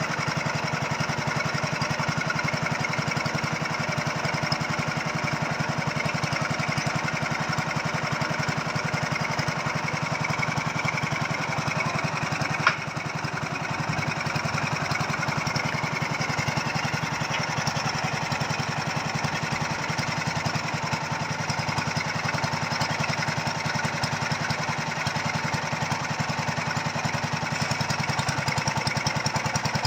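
Small engine of a machine-driven foundation boring rig running steadily, with one sharp click about halfway through.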